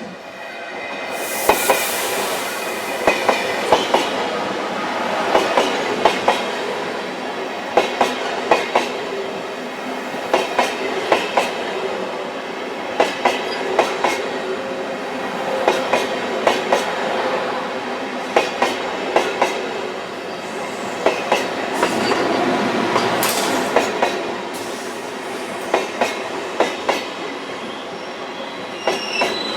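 Railway carriages running over jointed track, their wheels clicking over the rail joints in repeated pairs at a steady rhythm over a continuous rumble.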